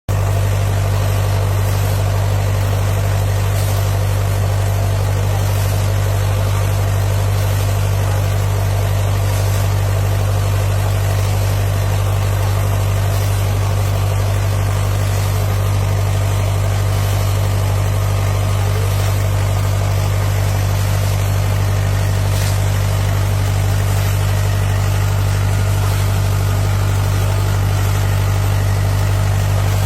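Steady drone of an engine-driven water pump feeding a big-gun irrigation sprinkler, running at constant speed under the hiss of spraying water.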